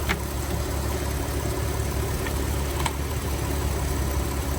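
Car engine idling steadily, with a couple of faint clicks over it near the start and about three seconds in.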